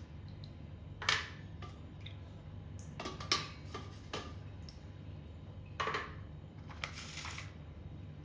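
Pieces of a broken dry clay block clicking and tapping against each other and a plastic plate as they are handled, a few sharp knocks in all. About seven seconds in comes a short scraping rustle.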